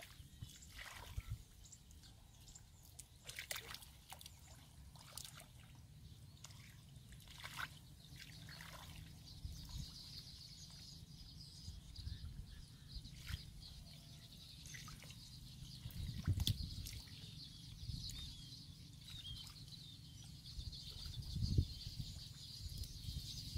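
Hands and feet working in shallow muddy water: faint sloshing, dripping and squelching of mud. There are a few louder squelches in the second half.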